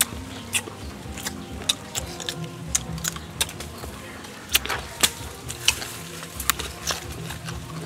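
Close-up chewing and lip-smacking while eating crisp green mango dipped in salt and chili: a string of sharp, irregular wet clicks and crunches, several a second.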